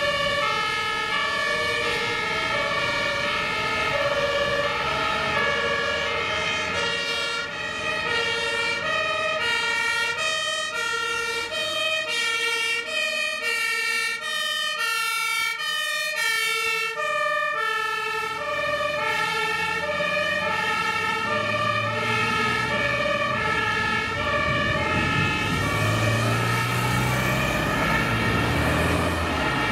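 German fire engines' two-tone emergency horns (Martinshorn) sounding, the pitch stepping back and forth between two tones, with two horns overlapping out of step in the middle. A truck's diesel engine rumbles in more strongly in the last ten seconds as a fire engine passes close by.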